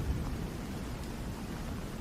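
Steady rain falling, with the low rumble of a thunderclap dying away in the first half second.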